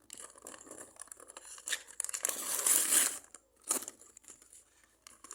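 Plastic packaging crinkling and tearing as small toy pieces are unwrapped. It is loudest for about a second, from two seconds in, and there is a sharp click a little before four seconds.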